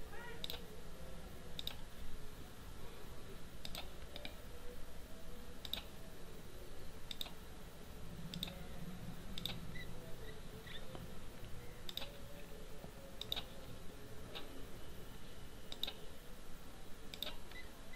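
Computer mouse clicks, sharp and irregularly spaced at roughly one a second, over a faint steady background hum.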